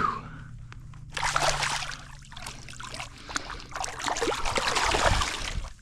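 Water splashing and sloshing at the pond's edge as a caught bass is released back into the water, starting about a second in and running for several seconds.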